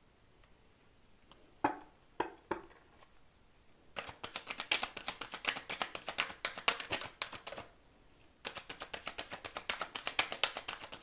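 An oracle card deck being shuffled overhand by hand: three soft knocks, then a fast run of crisp card flicks that stops for a moment and starts again.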